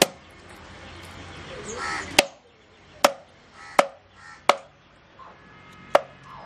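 A long knife chopping through a large fish onto a wooden log, about six sharp chops at uneven intervals. Crows caw in the background between the chops.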